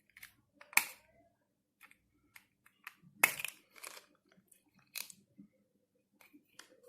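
Plastic disposable razors and their snap-on covers being handled: scattered sharp clicks and crinkly rustles, with two louder clicks about a second in and about three seconds in.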